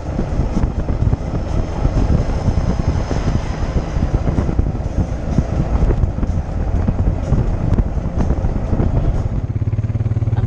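Open-cab utility vehicle driving along a road: a dense, uneven rumble and rattle with wind buffeting the microphone. About a second before the end it switches to the steady hum of an ATV engine running.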